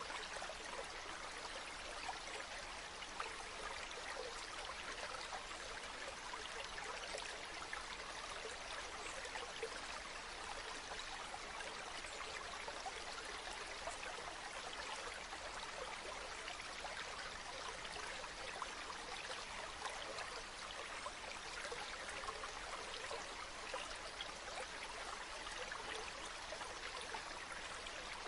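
Running water flowing steadily, an even rush with many small quick splashes in it.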